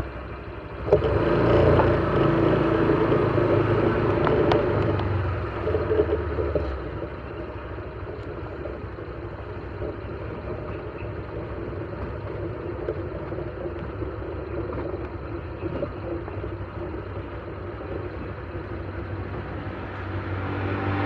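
Motorcycle engine running while riding, louder for the first several seconds, then quieter and steady.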